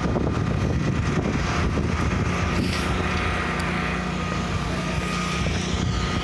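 A steady motor drone with a faint, even high whine above it.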